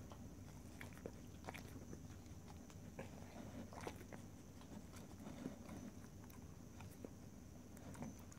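A dog nosing and mouthing a small piece of broccoli without eating it: faint, scattered clicks of lips and tongue.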